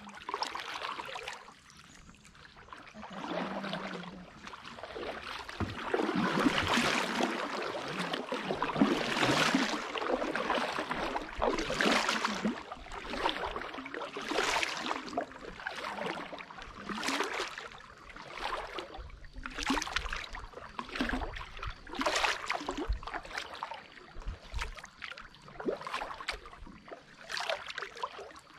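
Kayak paddle strokes in still swamp water: the blades dip and pull with splashing and dripping. The strokes are busier and louder for a few seconds in the first third, then settle into one stroke about every two and a half seconds.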